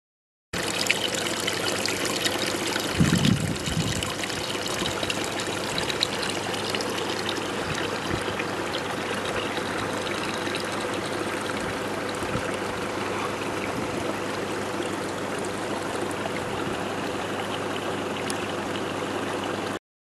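Steady rushing noise with a low thump about three seconds in.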